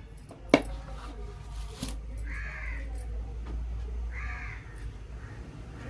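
A bird calling twice with harsh calls about two seconds apart, over a steady low hum. A sharp knock sounds about half a second in.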